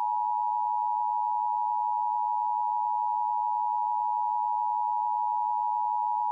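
Emergency Alert System attention signal: the steady two-tone alert (853 and 960 Hz sounded together) held at a constant level, heralding a National Weather Service tornado warning.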